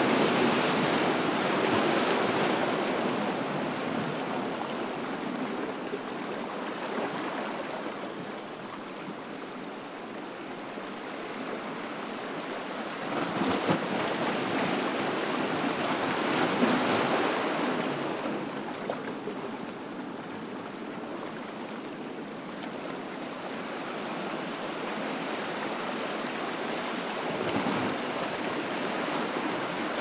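Ocean waves breaking and washing up a beach: a steady rush of surf that swells louder at the start and again around the middle.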